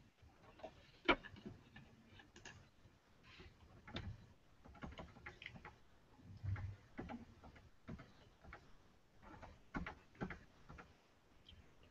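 Faint, irregular clicks at a computer while presentation slides are paged through, with a soft low thud a little past the middle.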